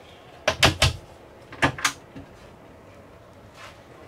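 Wooden interior door of a small truck camper being opened and pushed shut: three sharp clicks and knocks just under a second in, then two more shortly after.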